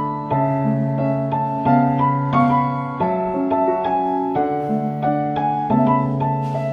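Background music: a gentle piano or electric-piano piece with chords and notes struck every half second or so.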